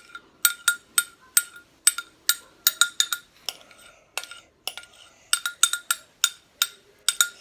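A teaspoon clinking against the side of a cup as borax is stirred into water: sharp, ringing taps, irregular, about two or three a second.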